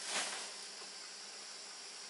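Steady insect chorus, a high, even hiss, with one brief swish just after the start.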